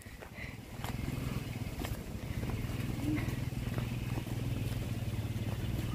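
A motor engine running steadily with a low hum, coming in about a second in.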